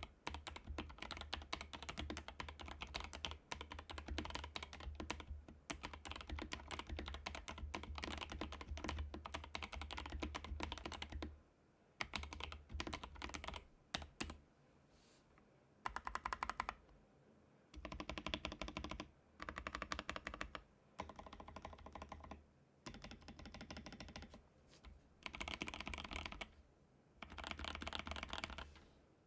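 Typing on a Keychron K2 V2 mechanical keyboard with lubed Boba U4T tactile switches, XDA profile keycaps and a foam-modded aluminium case. Fast continuous typing for about the first eleven seconds, then short bursts of keystrokes broken by brief pauses.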